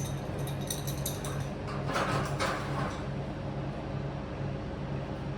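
Hand-priming lever of a 1939 Austin 12's mechanical fuel pump being worked, quick clicks fading out in the first second, to push fuel up to the carburettor. A short rustle follows about two seconds in, over a steady, pulsing low hum.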